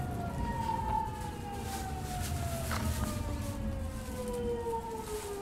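Hitachi GTO-thyristor VVVF inverter and traction motor whine of a Kobe Municipal Subway 1000 series car, heard from on board over the rumble of the running gear. Several tones fall steadily in pitch together as the train slows down, with a single click about three seconds in.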